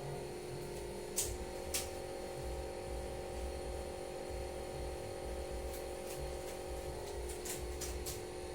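Steady electrical hum in a small room, with a few short, sharp clicks about a second in and a quick cluster of them near the end.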